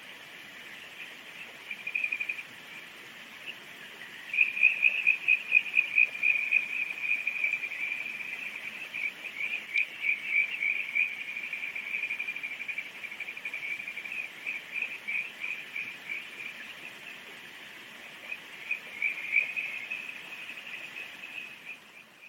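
Kajika frogs (Buergeria buergeri) calling: a chorus of high, rapid pulsed trills. They are loudest from about four seconds in to about twelve seconds, with another burst near the end.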